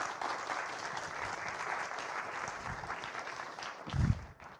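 Audience applauding, a dense patter of many hands clapping that thins out near the end. A dull low thump sounds about four seconds in.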